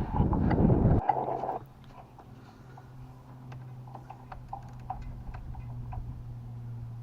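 Loud rustling handling noise for about the first second and a half. Then scattered light clicks, several a second, from a ratchet and 10mm socket working the bolt at the bottom of the radiator, over a faint steady low hum.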